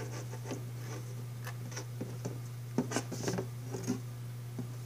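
Faint, irregular clicks and rustles of fingers handling a very thin wire and the plastic base of a solar garden light while feeding the wire up through it, over a steady low hum.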